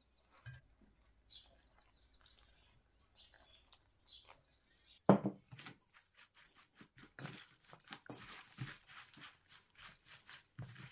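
A wooden spoon in a perforated stainless steel bowl: a few faint light taps, one sharp knock about five seconds in, then a quick run of scraping and rustling strokes as the spoon stirs green onions, sweet potato strips and rice flour together.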